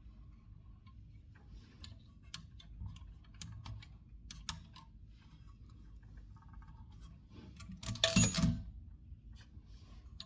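Heroine Model A typewriter mechanism giving a few soft ticks and clicks, then, about eight seconds in, a loud mechanical clatter with the margin bell ringing once, which signals that the carriage is nearing the set margin.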